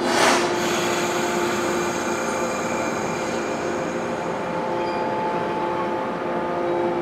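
JR Kyushu 415 series electric multiple unit rolling slowly into the platform: a steady multi-tone hum, with a short hiss just after the start.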